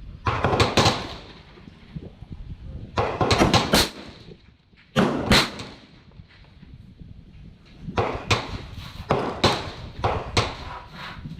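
Gunshots on a shooting range: sharp cracks every second or two, several coming in quick succession with a short echo after each.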